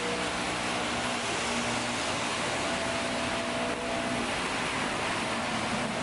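City traffic on a rain-wet road: a steady hiss of car tyres on wet asphalt, with a low engine hum that fades in and out as vehicles pass.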